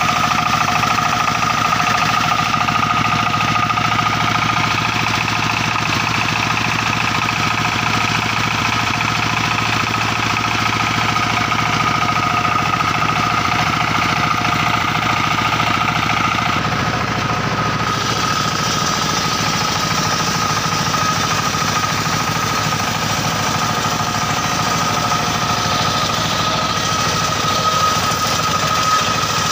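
Circular-saw sawmill machine running steadily, with a constant whine over a fast mechanical chatter; about eighteen seconds in, a brighter hiss joins.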